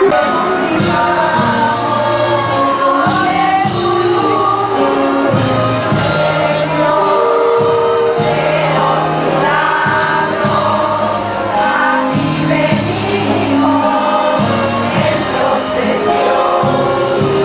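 A choir singing a hymn with instrumental accompaniment, steady throughout, with held notes over a moving bass line.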